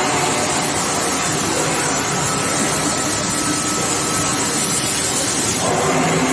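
Steady industrial noise from an induction quenching and tempering line for oil casing pipe: a continuous hiss and rumble, with a faint steady whine in the middle.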